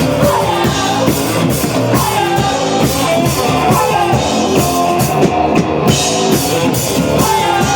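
Rock band playing loud with a steady beat on the drum kit and electric guitars.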